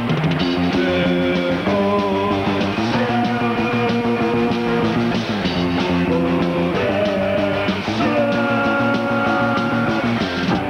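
Rock band playing live: electric guitar and bass guitar holding chords that change every second or two.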